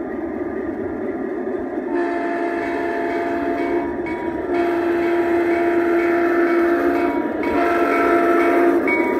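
Onboard sound unit of a large-scale model BNSF diesel locomotive sounding a multi-chime horn in three blasts, starting about two seconds in, over the steady rumble of the running train. The horn sound grows louder as the train approaches.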